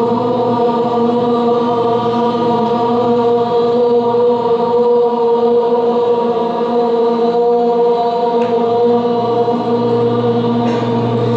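Voices chanting one long, unbroken tone in unison on a steady pitch, as a sound exercise in smile meditation.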